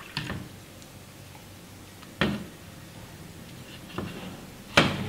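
Plastic cups being handled on a kitchen counter: a few sharp knocks and clatters, the loudest near the end.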